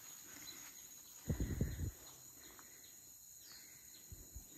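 Faint, steady, high-pitched insect chirring in the background, broken about a second and a half in by a short cluster of low thumps, with two smaller thumps near the end.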